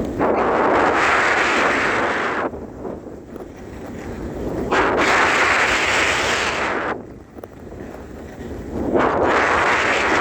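Rushing noise of a fast downhill ski run, with wind on the microphone and snow under the skis. It surges three times, each surge lasting about two seconds, with quieter stretches in between.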